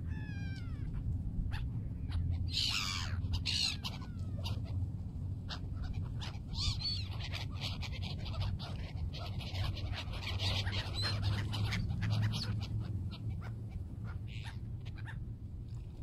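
Gulls calling in flight: a string of high, wavering mewing calls, several overlapping, over a steady low rumble.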